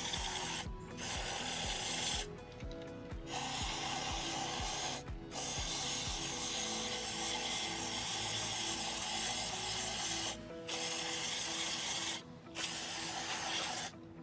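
Aerosol can of CRC Mass Air Flow Sensor Cleaner hissing through its extension straw as it is sprayed onto a mass airflow sensor's wires, in long bursts with short pauses, about six in all. Background music with a steady beat runs underneath.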